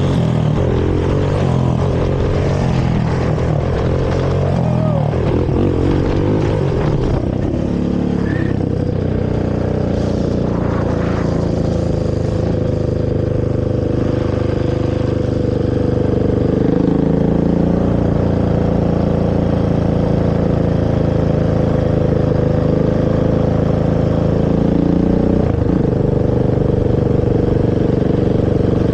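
Honda TRX450R quad's carbureted single-cylinder four-stroke engine through its stock exhaust. It revs up and down for the first several seconds, then holds a fairly steady pitch that steps up around the middle and dips briefly near the end.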